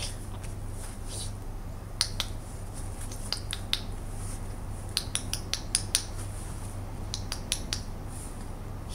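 A run of short, sharp clicks in four small clusters, the busiest about halfway through, over a steady low hum.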